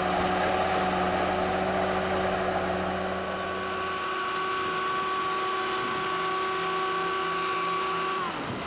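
New Holland Braud SB 64 film-laying machine running, a steady engine note joined about three seconds in by a higher whine. Near the end the tones fall away quickly.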